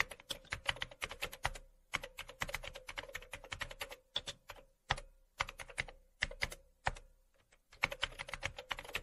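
Computer-keyboard typing sound: rapid key clicks in quick runs broken by short pauses, over a faint steady hum.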